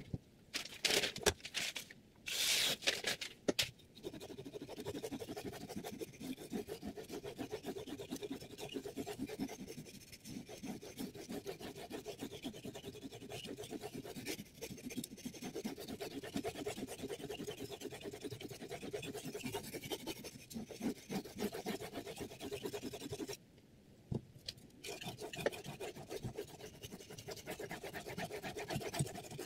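Steel kitchen knife blade being stroked back and forth across a Findking water whetstone, held at a fixed angle by a Hapstone T1 guide: a rapid run of rubbing scrapes of steel on stone. It opens with a few louder knocks and rattles as the knife and guide are set on the stone, and pauses briefly near the end before the strokes resume.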